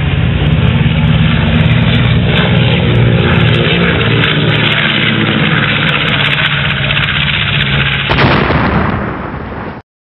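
Loud jet aircraft engine noise overhead, a steady dense roar with sliding tones as the aircraft pass. About eight seconds in the sound changes abruptly, then it cuts off just before the end.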